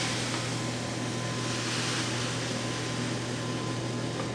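Granulated sugar poured from a bag into a plastic measuring cup, a soft grainy hiss, over a steady low hum.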